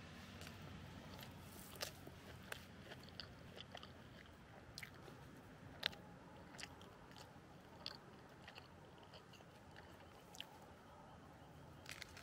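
A person chewing a bite of sandwich, with soft crunches and mouth clicks at irregular moments.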